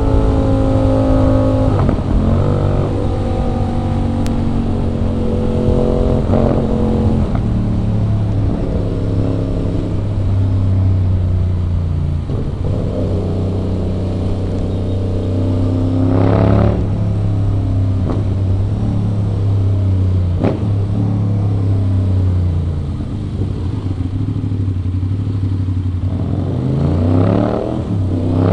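Aprilia RS 660's parallel-twin engine under way, its pitch stepping up and down through changes of revs. It revs up sharply about halfway through and climbs again near the end.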